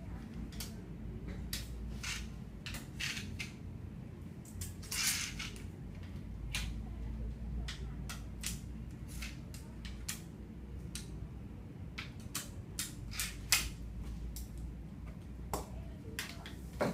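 Thin printed plastic bags crinkling and rustling in short, irregular crackles as they are handled and smoothed flat on a table, over a steady low hum.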